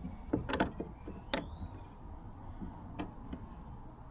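Scattered sharp clicks and taps of hand tools and metal hardware as transom bolts are worked into a plastic kayak hull, about five at irregular intervals.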